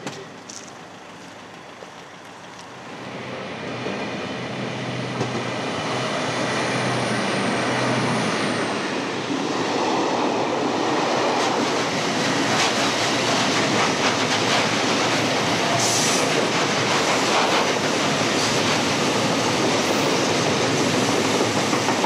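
Freight train hauling nuclear-waste cask wagons approaching and rolling past, its wheel and rail noise building over the first several seconds to a steady loud rumble of passing wagons. A thin high wheel squeal sounds for a couple of seconds early on, and a short sharp screech comes about sixteen seconds in.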